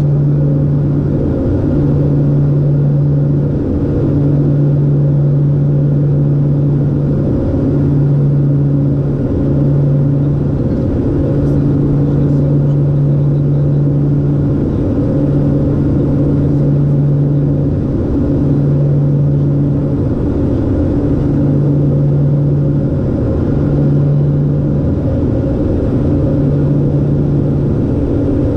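LET L-410's twin turboprop engines and propellers droning steadily in flight, heard from inside the cockpit. The low propeller hum wavers, fading and returning every second or two.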